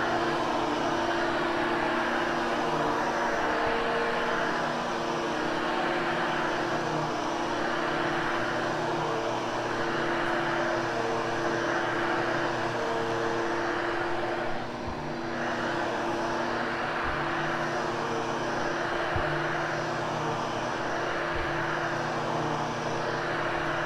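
Hoover Hushtone upright vacuum cleaner running on carpet: a steady motor drone with a rush of air that swells and fades about every two seconds as it is pushed back and forth, dipping briefly about two-thirds of the way through.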